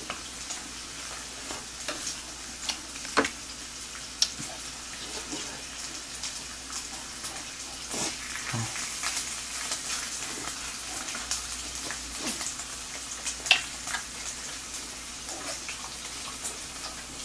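Slices of pork belly sizzling on a griddle, a steady hiss of frying fat, with a few sharp clicks and taps.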